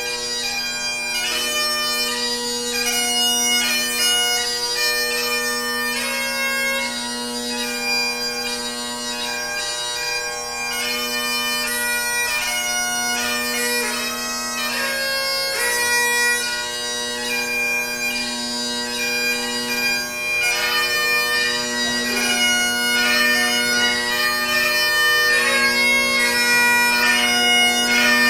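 Bagpipes playing a tune, the melody running over steady, unbroken drones.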